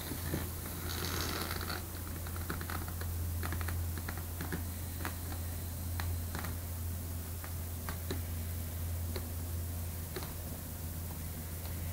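Handling noise from a hand-held camera: scattered light clicks and a brief rustle about a second in, over a steady low hum.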